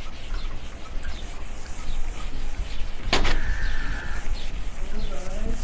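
Whiteboard duster rubbing across a whiteboard in repeated wiping strokes. About three seconds in there is a sharp knock, followed by a steady high tone lasting about a second.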